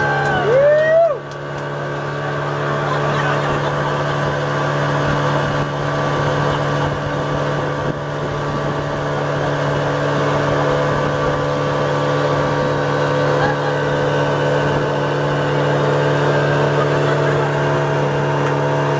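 Boat's outboard motor running at a steady cruising speed, with water rushing along the hull. A short voice is heard near the start, the loudest moment.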